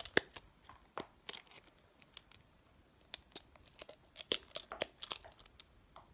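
Plastic fidget toys being handled and shuffled about: irregular sharp little clicks and crinkly rustles, with a quieter lull about two seconds in.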